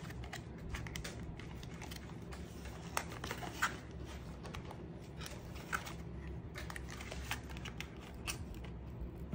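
Hands peeling open the packaging of an airsoft M4 magazine: scattered small clicks, ticks and crinkles over a low steady hum.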